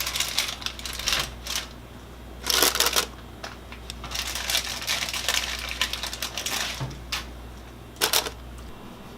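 Wax paper crinkling and rustling as it is laid between layers of treats in a storage container. The handling comes in several bursts, with the longest from about four to seven seconds in.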